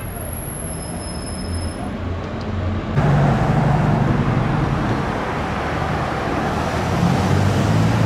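Road traffic noise: a steady rumble of passing cars, with a faint thin high whine in the first two seconds. The sound jumps abruptly louder about three seconds in.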